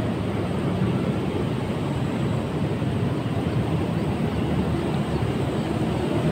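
Steady low rushing rumble with no distinct events, strongest in the low range.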